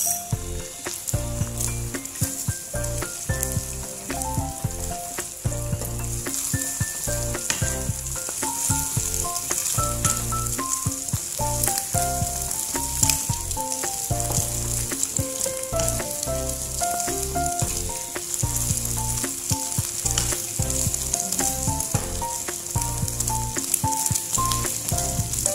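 Beaten egg with sliced shallots and garlic sizzling steadily in a nonstick frying pan while it is stirred and scrambled with a wooden spatula. Background music with a melody and a repeating bass line plays over it.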